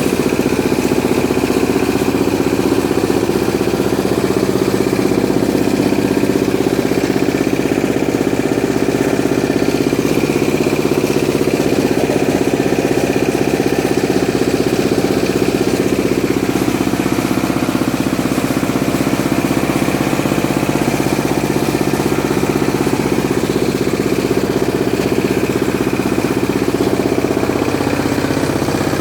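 Engine-driven corn grinding mill running steadily, its engine giving a continuous even drone.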